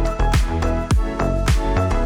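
Upbeat background music with a steady kick-drum beat about twice a second under sustained melodic notes.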